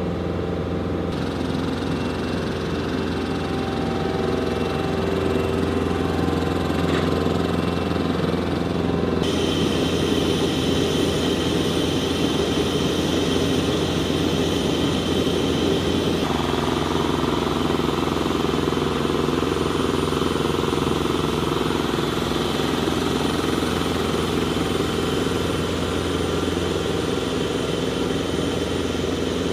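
An engine running steadily at idle, a continuous hum with a few steady tones. The tone changes abruptly about 9 and 16 seconds in.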